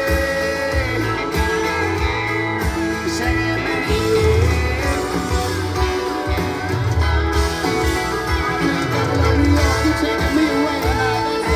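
Live country band playing loud through the stage PA: electric guitars over bass guitar and drums.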